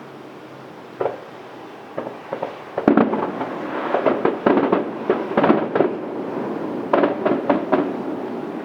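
Fireworks bursting: a single bang about a second in, a couple more shortly after, then a rapid volley of sharp pops and crackles, and another short cluster near the end.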